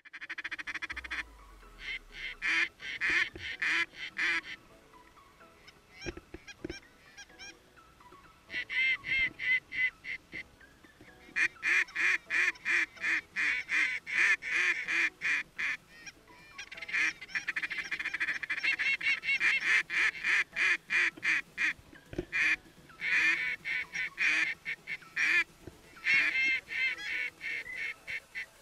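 A flock of geese honking, many calls overlapping in rapid bursts that come in loud waves with quieter stretches between.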